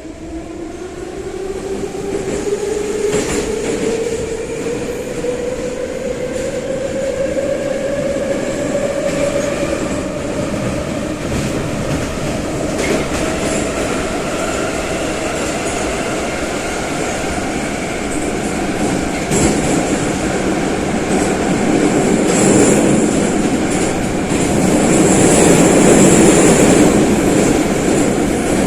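Metro train of the St. Petersburg-built 81-717/714 'numbered' type accelerating: its traction-motor whine rises steadily in pitch over the first half, then the train runs on with steady wheel and rail noise that grows louder near the end.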